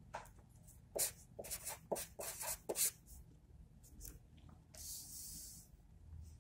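Felt-tip marker writing on paper in a series of short, quick scratching strokes, then a longer faint hiss about five seconds in as the paper sheet is slid along the table.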